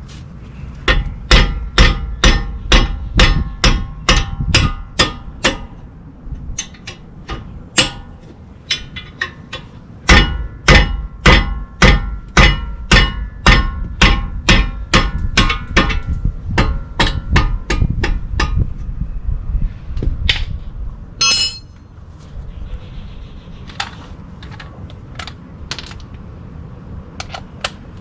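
A hammer striking steel brake parts in two runs of about two blows a second, each blow ringing metallically, followed by a single bright clang near the end and a few lighter knocks.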